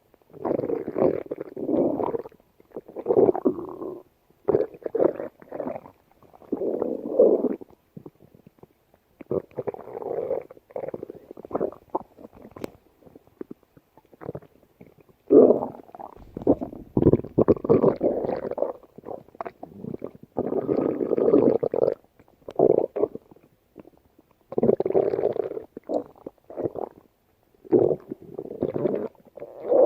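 A person's stomach growling in a long series of irregular rumbles, each a second or two long, with short gaps between them.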